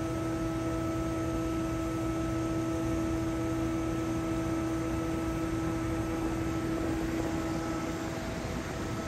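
Steady mechanical hum with a constant pitch and an even background rush; a deeper part of the hum drops away about seven seconds in.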